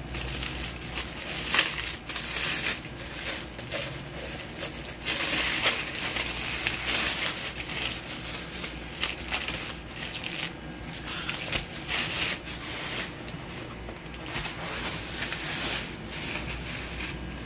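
Tissue paper crinkling and rustling as hands unwrap the items packed in it, in irregular crackly bursts that are loudest about 1.5 seconds in and again around 5 to 7 seconds.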